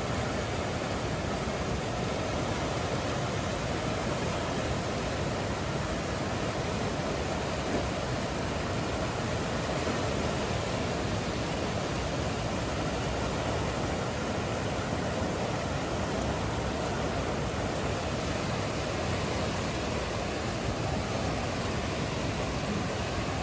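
Floodwater from an overflowing bayou rushing past in a steady, unbroken noise.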